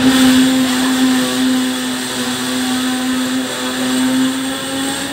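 Hong Kong double-decker tram running along the street, its electric motor giving a steady hum at one fixed pitch over the rumble and hiss of the ride; the hum starts and stops abruptly.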